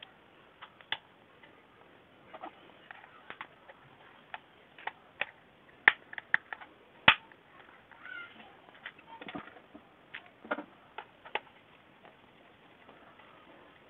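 Irregular clicks, taps and knocks of hair dryer parts being fitted back together as the opened hair dryer is reassembled, with some soft scraping; the sharpest snap comes about seven seconds in.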